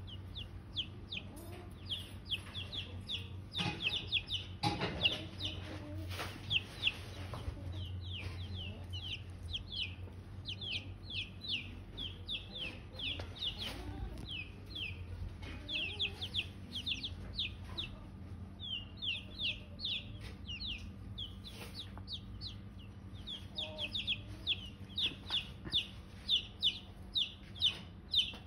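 Newly hatched chicks peeping: a near-continuous run of short, high-pitched, falling cheeps, often several a second.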